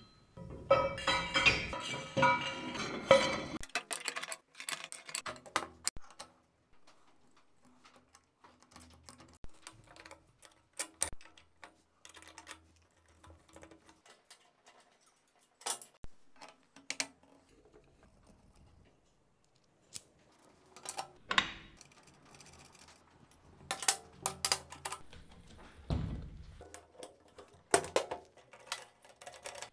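Steel machine parts being handled and fitted together: scattered clinks, taps and knocks of metal on metal and on a workbench, with quiet gaps between. The sounds are busier in the first few seconds.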